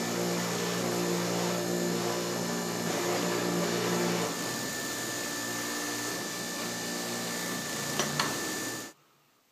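Electric-driven hydraulic press running steadily as its ram pushes a keyway broach down through the bore of a steel timing collar. The note drops slightly about halfway, and the press cuts off suddenly about a second before the end.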